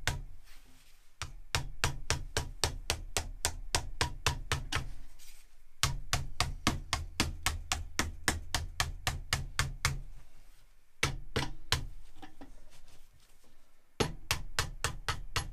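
Rapid, even taps, about five a second, in runs of a few seconds with short pauses: the edge of an aluminum sheet is being worked up over clamped plywood form blocks, bending the flange of an airplane fuel-tank end.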